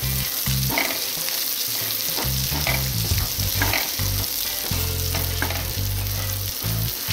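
Sliced calabresa sausage and onion sizzling in olive oil in a frying pan, stirred with a silicone spatula in short scraping strokes against the pan. An on-off low rumble runs underneath.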